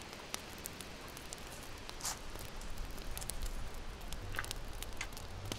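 Small wood campfire in a steel fire ring crackling, with scattered sharp pops.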